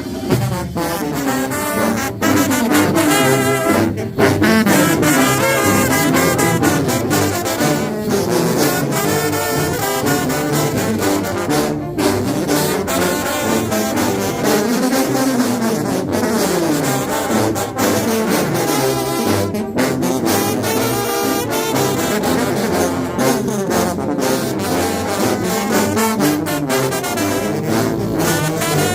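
Mexican banda brass band playing: tubas carrying a moving bass line under trombones and trumpets, with regular drum hits.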